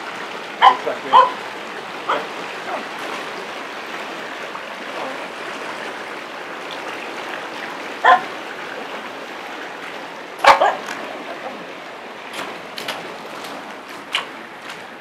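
Finnish Spitz giving a handful of short, sharp barks, the loudest about ten seconds in, over the steady rush of a small waterfall and stream.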